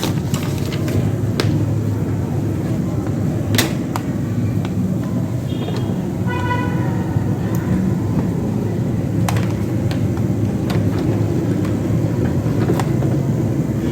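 Steady low rumble of vehicle traffic, with a few sharp clicks and a brief horn-like toot about six seconds in.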